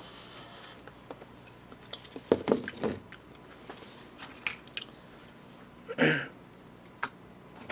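Quiet, scattered clicks and rustles of plastic takeout containers and lids being handled, with one short, louder crinkle about six seconds in.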